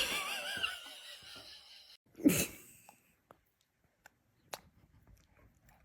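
A baby sneezes once, a short sharp burst about two seconds in. Before it, a faint high wavering voice trails off, and a few small clicks follow.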